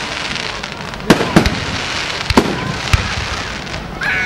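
Aerial fireworks bursting in the sky: four sharp bangs in quick succession, starting about a second in, over a steady background hiss.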